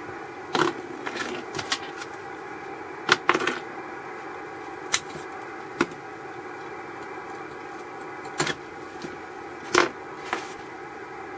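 Clicks and scrapes of miniature vacuum tubes being pulled from and pushed into their sockets on a home-built receiver chassis while the two IF amplifier tubes are swapped. There are about ten sharp clicks, unevenly spaced, over a low steady hiss.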